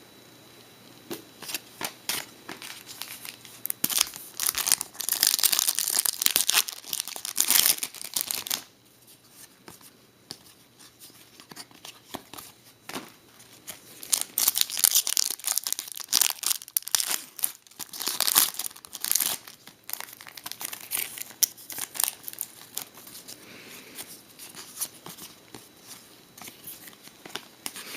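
Foil wrappers of 2009/10 SP Authentic hockey card packs tearing and crinkling as packs are opened, in rustling bursts with short ticks between. The loudest stretches come about four to eight seconds in and again from about fourteen to twenty seconds.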